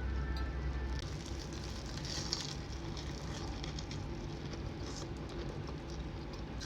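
Steady sizzling and crackling of oil frying, with many small pops throughout.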